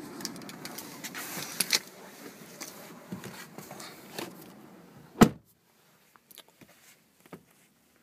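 Shuffling and handling noises as someone climbs into a car's back seat, then a 2012 Chevy Malibu's door shutting with one sharp thud about five seconds in, after which the outside noise is cut off to near quiet.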